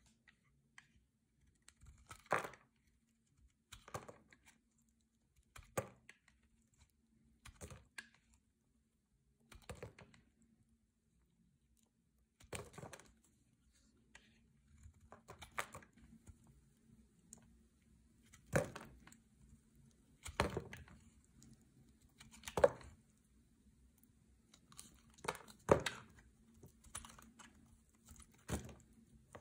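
A knife blade cutting into a hard bar of green soap, one short cut roughly every two seconds, about a dozen in all, the later ones louder. A faint steady hum lies underneath.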